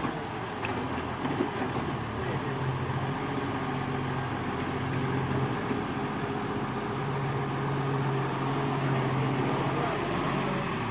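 Diesel engine of a Link-Belt excavator running with a steady hum; its note fades for a second or so midway, then comes back.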